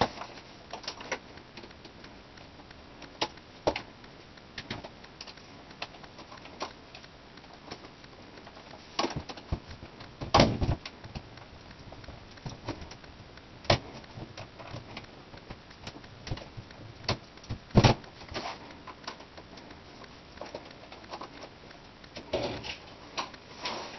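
Irregular small clicks and light knocks of a Phillips screwdriver, small screws and a laptop's LCD panel and metal rails being handled while the side screws are taken out, with two louder knocks about ten and eighteen seconds in.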